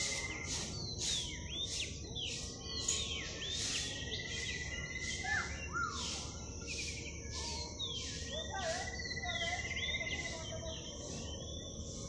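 Several birds calling and singing together: repeated high chirps, downward-sliding whistles and a buzzing trill, over a faint low rumble of background noise.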